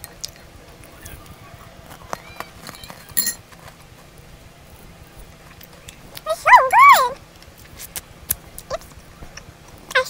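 A small pet dog gives three quick, high yips a little past halfway, under a second in all. Faint clicks of a metal spoon in a glass bowl come and go around them.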